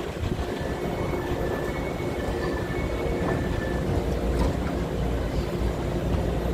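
Taiwan Railway EMU900 electric multiple unit standing at the platform with its doors open, its onboard equipment giving a steady low hum and rumble, with a few faint high tones coming and going.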